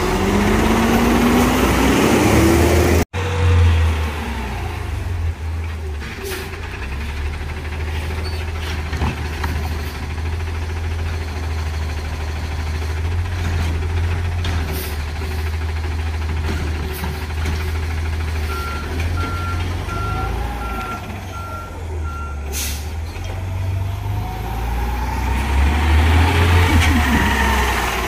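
Peterbilt side-loader garbage truck running with a steady low diesel rumble, with a rising whine in the first few seconds. Midway a backup alarm beeps about six times, followed by a short hiss. Near the end the engine rises in pitch again as the truck drives up.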